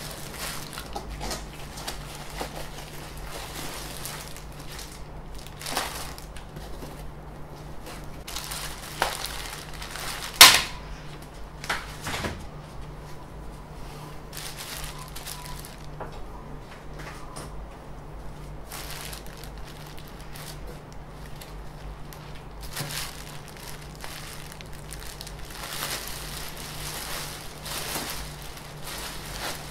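Clear plastic packaging rustling and crinkling as printer parts are unwrapped and handled, with scattered knocks and one sharp clack about ten seconds in. A steady low hum runs underneath.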